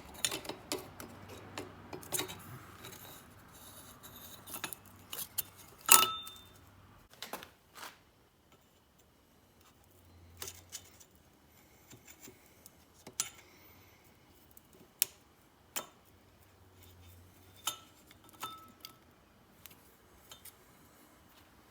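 Scattered light clicks and metallic clinks of small air-compressor pump parts and hand tools being handled, with one sharp, ringing metal clink about six seconds in.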